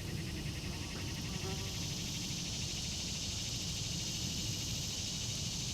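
Insects chirring outdoors: a steady, high, dense buzz with a fast pulse to it.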